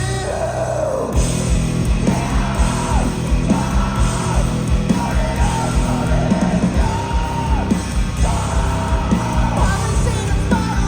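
A live rock band playing loud, with heavy drums, bass and guitars under a singer's yelled, held vocal lines.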